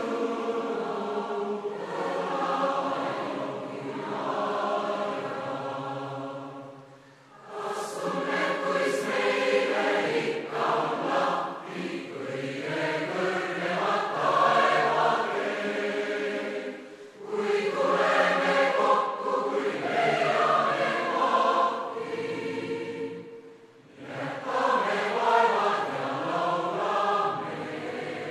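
Massed choir of men's and women's voices singing together in long sustained phrases. There are short breaks between phrases about 7, 17 and 23 seconds in.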